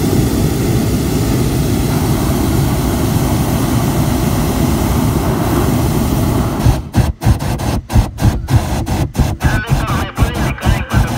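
Hot air balloon's propane burner firing overhead with a loud, steady rush, then from about seven seconds in cut on and off in quick short blasts, about three a second.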